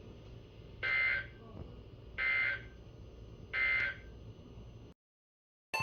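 Emergency Alert System SAME end-of-message data bursts: three short, identical two-tone digital warbles, each about half a second long and spaced about 1.4 s apart, over faint radio hiss. They signal the end of the marine warning message. Near the end the audio drops to dead silence.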